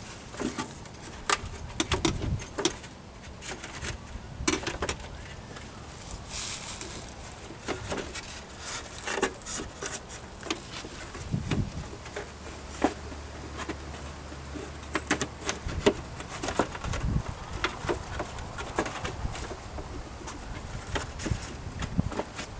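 Irregular knocks, taps and clatter of a wooden board being handled and fitted into a window opening, with a low steady hum for a few seconds in the middle.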